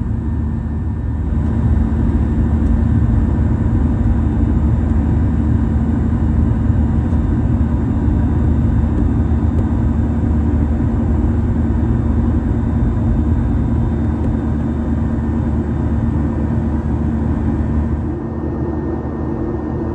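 Cabin noise of a Boeing 737-800 climbing after takeoff, heard from a seat by the wing: the steady rush of its CFM56-7B turbofan engines and the airflow, with a low steady hum. It eases off slightly near the end.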